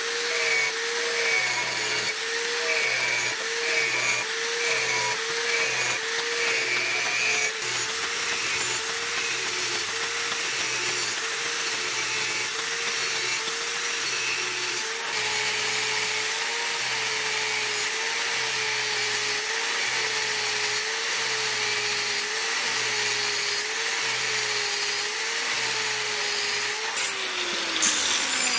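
Electric angle grinder running with an abrasive disc against a wooden machete handle, shaping the wood. Its whine wavers up and down about once a second. Near the end it is switched off and winds down with a falling pitch.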